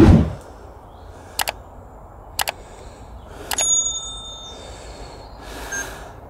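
Subscribe-button overlay sound effect: mouse clicks about a second apart, then a bell notification ding that rings for about a second, three and a half seconds in, and a short chime near the end. A low thump comes right at the start.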